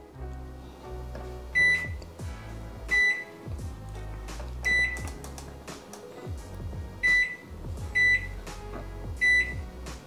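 Toshiba ML2-EC10SA microwave's keypad beeper sounding as its buttons are pressed and its dial turned: six short high beeps at uneven intervals, with background music underneath.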